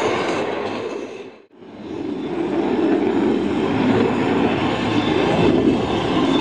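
Jet noise from a Dutch F-16 Fighting Falcon's Pratt & Whitney F100 turbofan as the fighter flies its display overhead: a steady, loud rushing rumble. It fades almost to nothing about a second and a half in, then swells back.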